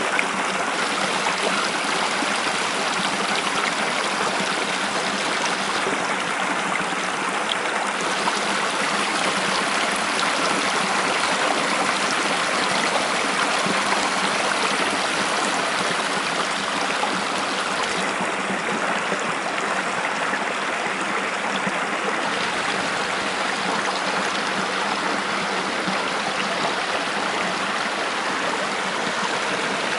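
Shallow spring-fed stream running over rocks and through waterweed into a pool: a steady rushing and burbling of water.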